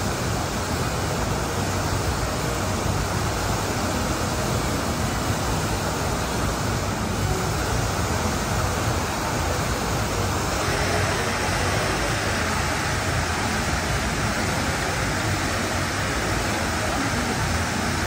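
Artificial waterfall cascading over rock into a pool: a steady rush of falling water that grows brighter about halfway through.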